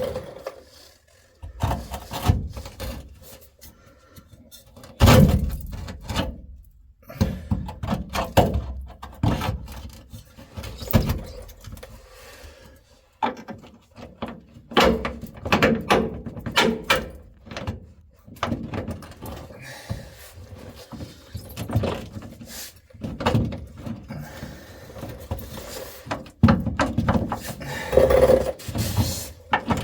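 Irregular clanks, knocks and rattles of hand tools and metal parts being handled during truck suspension work, with a louder knock about five seconds in.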